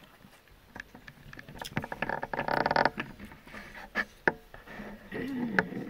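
Eating by hand from a banana leaf: fingers scraping and gathering biryani rice on the leaf, with scattered sharp clicks of chewing and lip smacks and a louder rustling scrape about two and a half seconds in.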